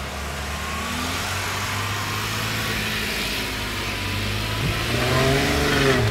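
Jeep Wrangler's engine pulling it slowly up a steep dirt slope. The engine grows louder about five seconds in, its note rising and falling near the end.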